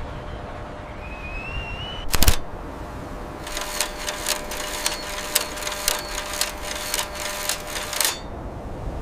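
A sharp knock about two seconds in, then a run of rapid, irregular mechanical clicks, roughly three a second for about four seconds, like a camera shutter or typewriter. A steady hum sits underneath.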